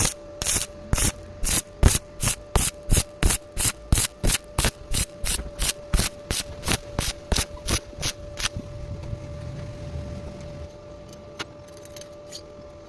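Rhythmic strokes of a tool working, about three a second, that stop about eight and a half seconds in, over a steady hum.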